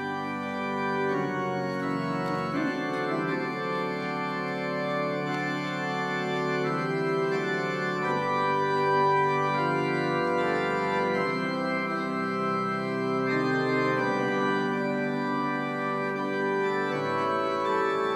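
Organ playing slow, sustained chords that change every few seconds, a postlude following the dismissal of the service.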